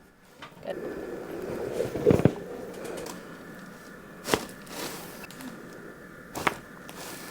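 Joints cracking during chiropractic adjustments: three short, sharp pops, about two seconds in, about four seconds in and about six and a half seconds in, over low background noise.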